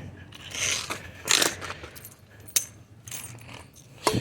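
Small metal scrap being handled: a series of clinks and rattles, with a sharp click about two and a half seconds in and a knock at the end.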